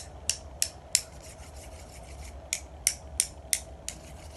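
A pair of chopsticks tapped together as rhythm sticks: a run of four sharp clicks, a pause of about a second and a half, then another run of four or five, at about three taps a second.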